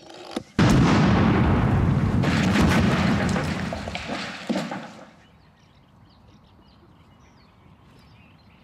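Explosion of a homemade sugar-and-fertiliser charge set off electrically with a plunger. It hits suddenly about half a second in, rumbles and clatters on for about four seconds with a second short crash near the end, then dies away.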